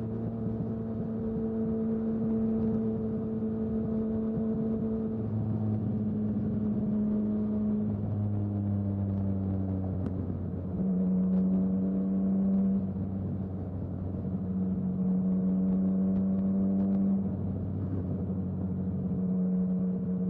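Yamaha XSR900's inline-three engine running at highway speed, its note holding steady and stepping up or down in pitch every few seconds, louder for a couple of seconds about eleven seconds in.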